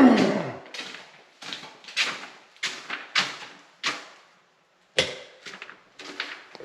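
Footsteps on a hard floor at a steady walking pace, about one step every half second or so, each with a short echo, with a brief pause near the middle. A door swinging or closing is heard right at the start.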